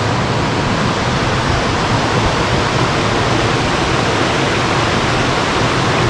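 Steady rush of a mountain creek and waterfall cascading over rocks.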